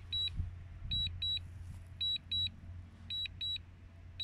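DJI Mini 2 remote controller beeping its return-to-home warning: short high-pitched double beeps, one pair about every second, the sign that automatic return-to-home is under way.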